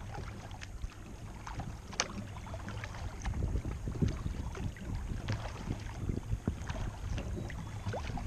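Plastic kayak moving along calm creek water: many scattered small ticks and light splashes from paddling and water against the hull, over a steady low rumble of wind on the bow-mounted camera's microphone.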